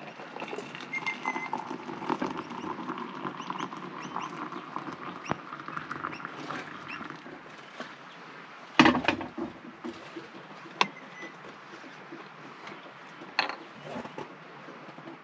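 Hot water poured from a collapsible kettle into two metal camping mugs, the pitch rising as they fill. About nine seconds in comes a loud knock as the kettle is set down on the gas stove, followed by a couple of lighter knocks.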